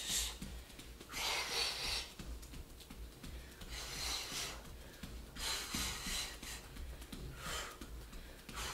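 A woman's forceful breaths out, one every second and a half to two seconds, while she throws non-stop jab-cross shadowboxing punches.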